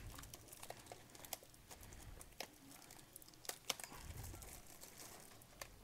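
Faint crinkling and scattered small ticks of a clear plastic wrapper being torn and handled as a pack of trading cards is unwrapped.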